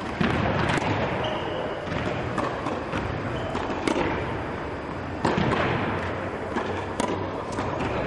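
Tennis balls being struck by rackets and bouncing on the court, sharp pops at irregular intervals from several rallies at once, each echoing in a large indoor tennis hall.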